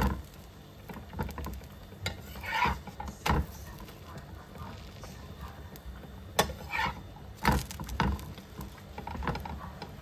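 Cooking utensils knocking and clinking against cookware a few scattered times, over a low background.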